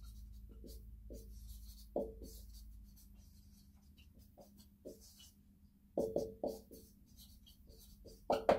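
Marker pen squeaking and scratching on a whiteboard as words are written: a string of short squeaks, the loudest about two seconds in and again around six seconds in. A faint steady hum lies underneath.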